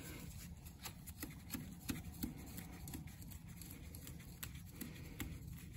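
Faint, scattered small clicks and handling noise of a 13mm open-ended spanner working the chain adjuster bolt on a motorcycle swingarm, the adjuster turning easily.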